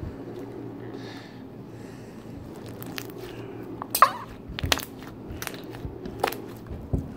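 Fingers pressing and poking a thin brown slime full of foam beads and crunchy beads. It gives off scattered sticky pops and crunchy clicks, about six of them, the loudest about four seconds in.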